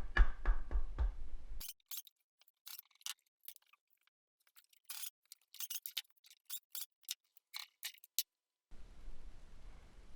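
Irregular sharp clicks and taps, small hard objects knocking. Between them there is dead silence from about two seconds in until near the end.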